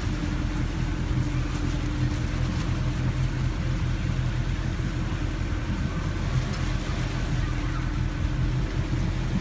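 Motorboat engine running steadily as the bowrider cruises, a constant low drone over an even rush of water and air.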